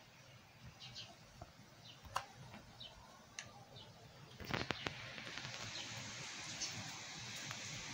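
Small birds chirping now and then in the background. A few sharp clicks come a little past halfway, and after them a steady hiss rises and holds.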